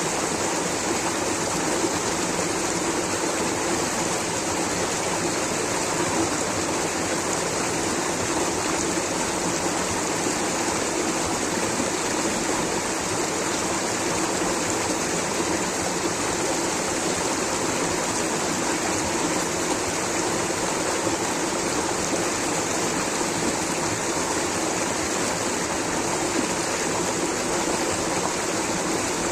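Water rushing steadily over a waterfall or down a stream, a continuous even roar without breaks or changes.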